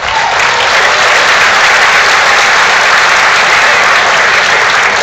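Audience applauding loudly and steadily.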